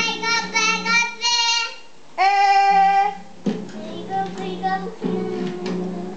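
A toddler singing in a high voice: a run of wavering notes, then one long held note, followed by a few strums on an acoustic guitar that ring on.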